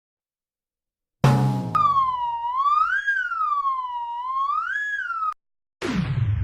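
Comedic sound effects: a short low thump, then a whistle-like tone that slowly rises and falls twice, like a siren, and stops abruptly. Near the end a falling whoosh sweeps down into a low rumble.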